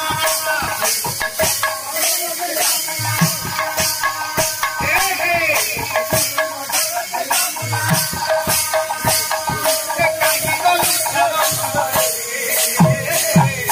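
Live folk kirtan music: a hand-played barrel drum with low strokes, over a steady metallic jingling beat of about two strokes a second and held melodic notes.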